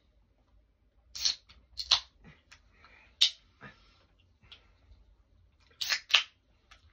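Carbonated soft-drink cans being opened and handled: short fizzy hisses and sharp clicks, two about a second and two seconds in, a sharp click in the middle, and a close pair near the end.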